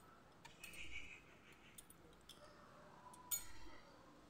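Near quiet, with a few faint clinks and taps against a steel tiffin box; the clearest comes a little after three seconds in.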